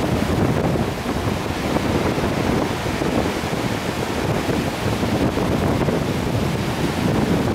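Wind blowing on the microphone over the steady wash of surf breaking on a shallow sandy beach.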